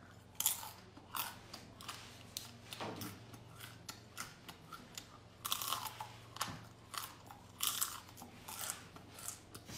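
A person biting into and chewing a crisp-fried bamboo weevil, a string of irregular sharp crunches.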